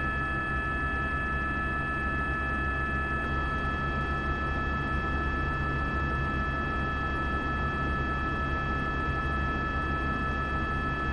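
A steady mechanical drone with a low hum and a few steady high whining tones over it, unchanging throughout.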